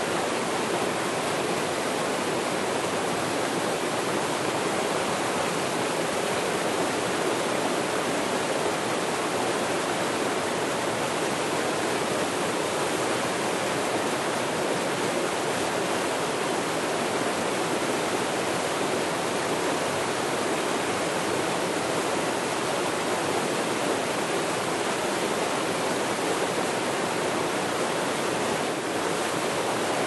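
A small waterfall pouring over a rock ledge into a plunge pool: a steady, unbroken rush of falling and splashing water.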